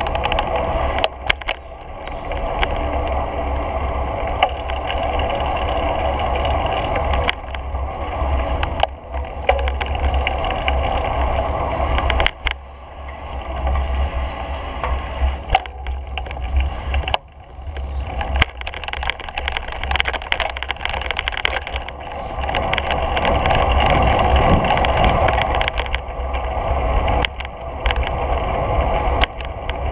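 Wind buffeting the microphone with a heavy low rumble, over the steady rolling noise of wheels on a paved path, broken by occasional sharp knocks.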